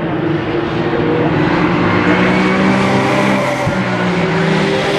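Race car engine passing at speed, its note swelling as the car draws near and runs past. There is a short break in the engine note about three and a half seconds in.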